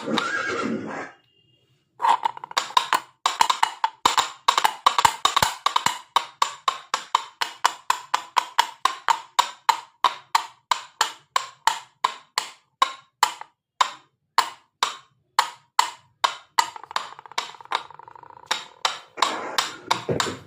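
Hand-made horse hoofbeat sound effect: a steady run of hollow wooden-sounding clops, about two to three a second, that stops near the end.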